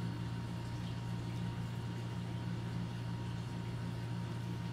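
Steady low hum with a faint high-pitched tone above it: unchanging room background noise, with no distinct event.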